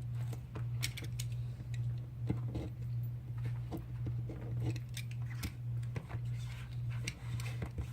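Small clicks and scrapes of hands and tools laying and trimming adhesive tape strips on a phone's frame, over a steady low hum.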